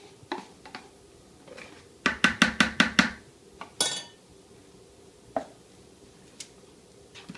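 A utensil and an ice cream pint carton knocking against a plastic mixing bowl as softened ice cream is scraped and knocked out into it. There are a few light clicks and scrapes, then a quick run of about seven sharp knocks about two seconds in, and a short clatter a second later.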